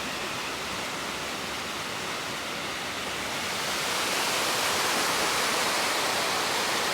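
Waterfall rushing: a steady wash of falling water that grows a little louder about halfway through.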